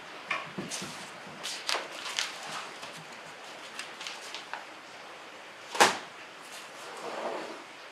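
A scatter of short knocks and clicks over a steady background hiss, with one sharp loud crack about six seconds in.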